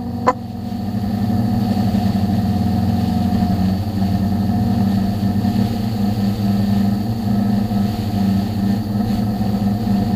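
Quadcopter drone's electric motors and propellers buzzing steadily in flight, picked up by the camera mounted on the drone. A sharp click comes about a third of a second in, after which the buzz dips and builds back up over the next second or so.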